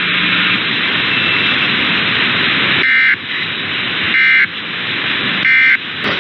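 AM radio static hiss, then three short bursts of Emergency Alert System digital data tones, the end-of-message code that closes an EAS test, about 1.3 seconds apart starting about three seconds in.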